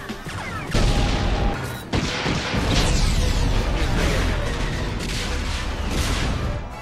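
Movie sound effects of a spaceship explosion: a sudden blast about a second in, another about two seconds in, then a long rumbling blast of fire.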